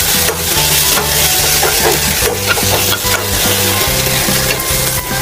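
Chopped pork sizzling in a thick sauce in a stainless steel wok while a metal spatula stirs and scrapes it, with frequent short scrapes and clinks against the pan. Background music with a low bass line runs underneath.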